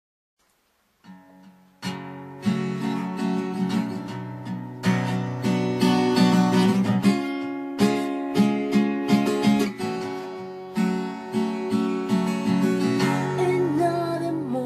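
Background music: chords strummed on an acoustic guitar, the instrumental opening of a song, starting about a second in.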